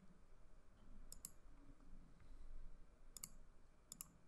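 Computer mouse button clicks, faint over near-silent room tone: a quick double click about a second in, another a little after three seconds, and a single click near the end.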